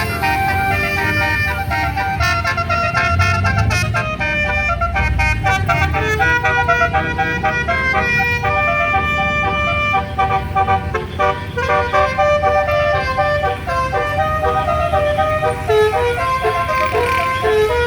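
Multi-tone telolet bus horn (Basuri type) playing a melody of short held notes that step up and down without a break, over the low running of a bus engine.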